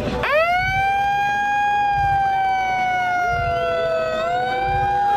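Handheld megaphone's built-in siren sounding one long tone that rises quickly at the start, sags slowly in pitch, then jumps back up about four seconds in.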